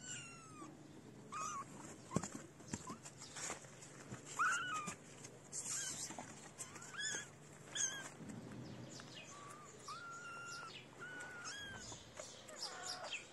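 Kittens mewing: many short, high-pitched calls repeated over and over, a few of them held longer near the end, with scattered rustles and knocks in between.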